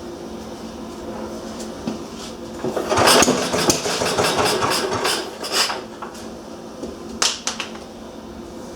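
Restored Briggs & Stratton Model Q engine being cranked over without the choke: about three seconds of rapid clattering knocks from around three seconds in. It does not start. A few sharp clicks follow near the end.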